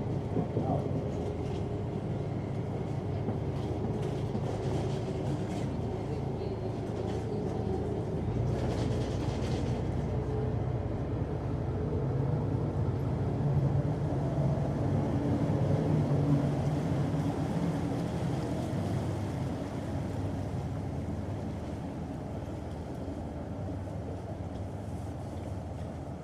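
Water bus engine running with a steady low drone as the boat comes in to its stop, growing louder a little past the middle and then easing off.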